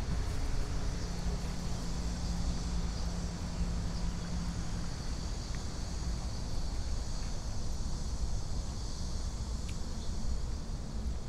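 Steady outdoor ambience: insects buzzing high and even, a low engine hum that fades out about five seconds in, and wind rumble on the microphone.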